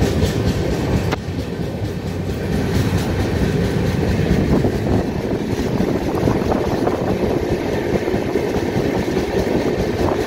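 Steady, loud rumble of a moving vehicle, with a single sharp click about a second in.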